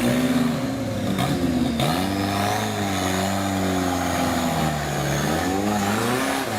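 Off-road 4x4's engine revving up and down, its pitch rising and falling every second or two, with a thin high whine held through the middle.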